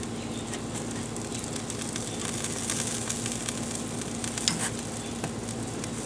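Chicken wings sizzling on the hot grate of a Big Green Egg charcoal grill, a steady hiss, with a sharp metal click of the tongs against the grate about four and a half seconds in.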